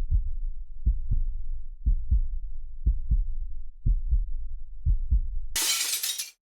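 Heartbeat sound effect: a low double thump repeating about once a second, six times, then a sudden loud rush of noise near the end that cuts off sharply.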